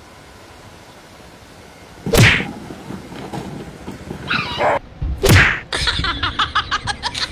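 A big box slammed down twice onto the ground over a sleeping dog, about three seconds apart; between the slams the startled dog gives a short yelp. People break into quick bursts of laughter after the second slam.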